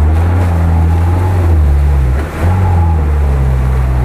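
UAZ-469 engine running hard under throttle as the jeep drives through a shallow creek, with water splashing around it. The revs dip briefly a little past two seconds in, then pick up again.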